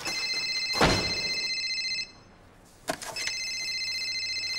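Mobile phone ringing with a steady electronic ringtone, two rings of about two seconds each with a short pause between. A door shuts with a thud about a second in, during the first ring.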